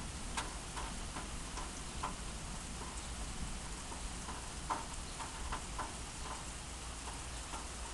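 Heavy summer rain falling steadily, with irregular close drops tapping a few times a second over the steady hiss.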